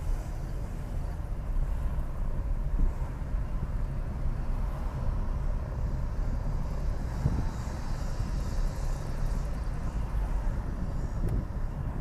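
A car driving along the road: a steady low rumble of engine and tyres, with a haze of road and wind noise.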